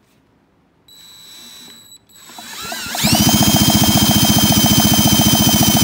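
Cordless drill spinning a Kawasaki 440 twin two-stroke snowmobile engine over by its flywheel, with the plugs out, for a spark test of the ignition. After a brief lighter whir, the drill winds up and runs steadily with a fast, even pulsing.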